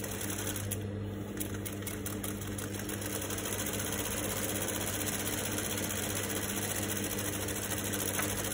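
Juki industrial sewing machine running a line of top-stitching through a fabric sample: a steady, rapid run of needle strokes over a constant hum, stopping near the end.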